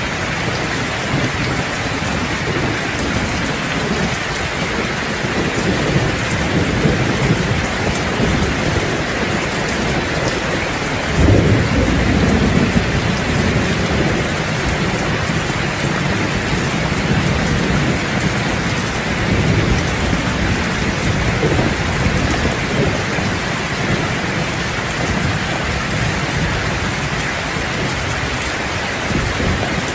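Heavy rain pouring steadily on a roof, with low rolls of thunder rumbling in and out; the strongest roll comes about eleven seconds in.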